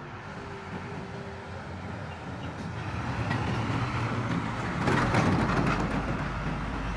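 Heavy truck's engine and tyres growing louder as it approaches and passes close by on the bend, loudest about five seconds in.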